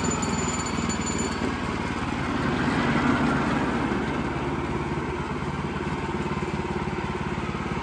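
Small gasoline engine of a portable band sawmill running steadily.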